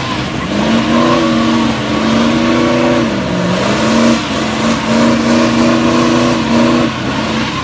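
Car engine revved and held at high revs, with a brief dip in pitch about three and a half seconds in, then held high again until it drops back near the end.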